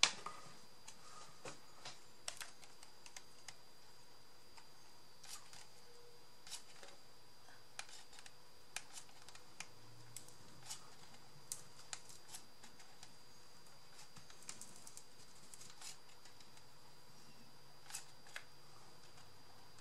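Scattered light clicks and taps of small craft pieces being handled and worked by hand, over a faint steady high-pitched whine.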